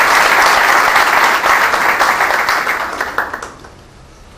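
Audience applauding, the clapping thinning into a few separate claps and dying away about three and a half seconds in.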